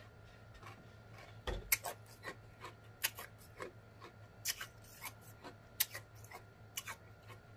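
Quiet mouth sounds of a man sipping and tasting a cold drink: a scatter of short, soft wet clicks and smacks at irregular moments.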